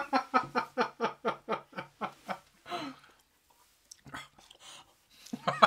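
A man laughing in a quick run of short ha's, about five a second, fading away over two and a half seconds. A short, louder burst of voice comes near the end.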